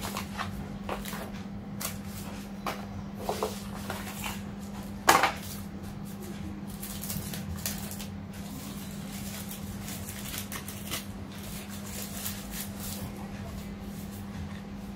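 Unpacking by hand: scattered clicks and knocks of small packed parts taken from a foam-lined drone case and set down on a tile floor, with one sharper knock about five seconds in, then the crackly rustling of crumpled paper and plastic wrapping. A steady low hum sits underneath.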